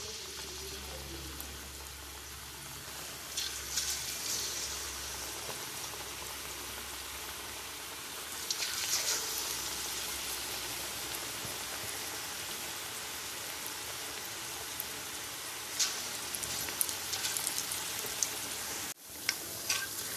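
Gram-flour pakora batter deep-frying in hot oil in a wok: a steady sizzle, swelling into louder crackling several times as more batter goes into the oil.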